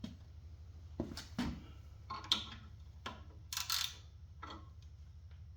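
Hand tools clicking and clinking against metal parts of a snowblower: a few scattered knocks and a short rattle about three and a half seconds in, over a steady low hum.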